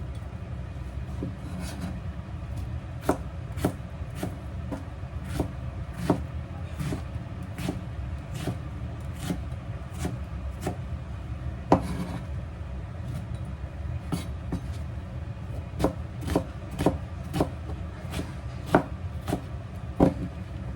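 Kitchen knife chopping food on a cutting board: irregular sharp knocks, about one or two a second, over a steady low hum.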